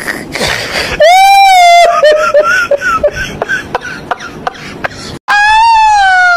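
High-pitched, sped-up laughter sound effect. A long squealing note about a second in gives way to a run of short, rapid 'heh-heh' bursts, and a second long squeal falls in pitch near the end.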